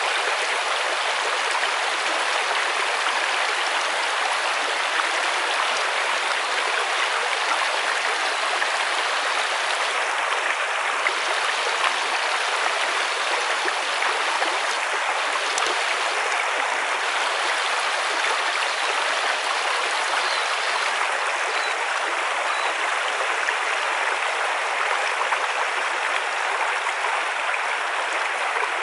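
River water running steadily: an even, unbroken rush of flowing water.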